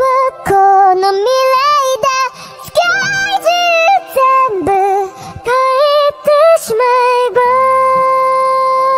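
A high female voice singing a pop song melody in short phrases over light backing, ending on one long held note near the end.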